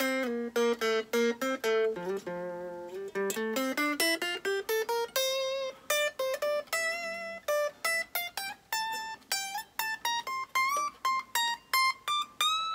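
Electric guitar playing a fast single-note lead line in D minor, improvised by stepping to neighbouring notes. The notes dip low about two seconds in, then climb steadily higher, and near the end a string bend rises in pitch.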